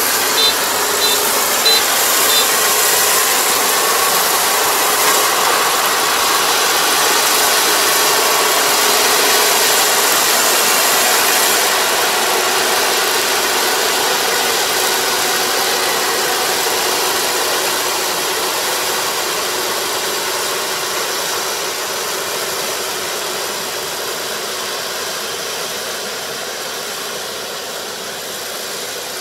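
Combine harvester running with a steady engine and machinery noise, with a few short high beeps in the first couple of seconds. The sound gradually grows quieter over the second half.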